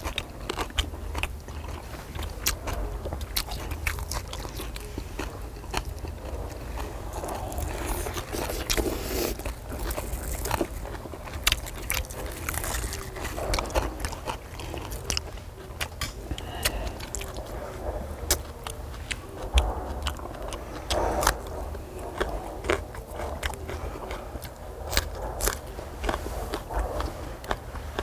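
People chewing and biting into food, with scattered sharp clicks throughout over a steady low hum.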